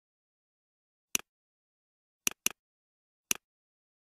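Computer mouse clicking four times against dead silence, two of the clicks coming in quick succession about halfway through. Each click is a short, sharp press followed by a softer release.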